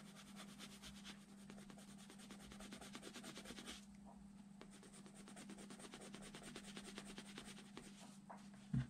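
Colored pencil shading rapidly on drawing paper, a fast, fine scratching of quick strokes that stops about four seconds in, over a steady low hum. A single dull thump just before the end.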